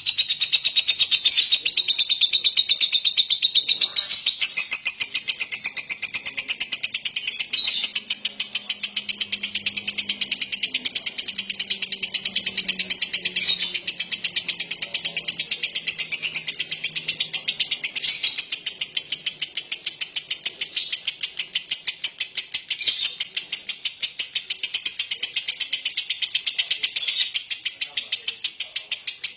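Lovebird singing one long, very fast chattering trill that runs on without a break, the extended song prized in lovebird singing contests.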